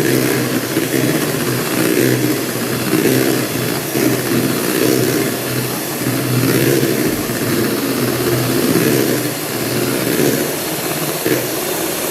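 Electric hand mixer running steadily, its beaters whisking cake batter in a bowl. The motor hum stays even, with a whirring that swells and eases a little as the beaters move through the batter.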